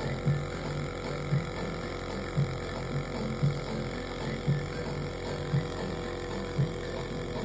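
Electric nebulizer compressor running with a steady hum, and a low pulse that comes very evenly about once a second.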